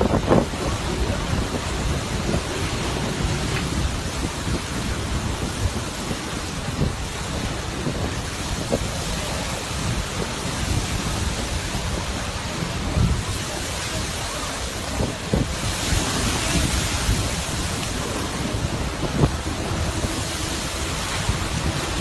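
Continuous roar of surf and wind where lava pours into the sea and boils off as steam, with low rumbling and scattered thumps and wind buffeting the microphone. A brighter hiss swells about two-thirds of the way through.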